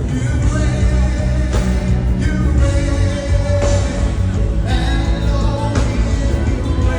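Live gospel worship music: a singer holding long notes over a band with heavy bass and regular drum hits.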